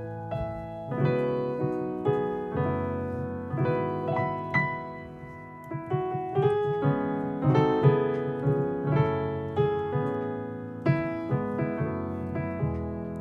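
Nord Stage 4 stage keyboard playing its White Grand XL sampled grand piano: a run of chords and melody notes, each struck sharply and then dying away.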